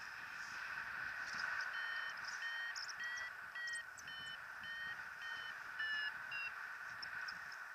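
Paragliding variometer beeping: a run of about ten short, evenly spaced beeps, roughly two a second, starting about two seconds in and stopping near the end, the signal that the glider is climbing in lift. Steady wind rush from the airflow over the microphone runs underneath.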